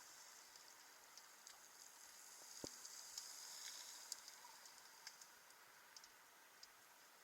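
Faint underwater ambience: sparse, scattered high-pitched clicks and crackle over a soft hiss, with one soft knock about two and a half seconds in.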